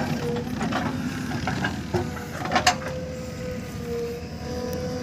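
JCB 3DX backhoe loader's diesel engine running steadily under load, with a steady high whine over the rumble. Soil pours from the bucket into the steel tractor trolley with scattered knocks early on, and two sharp clanks come about two and a half seconds in.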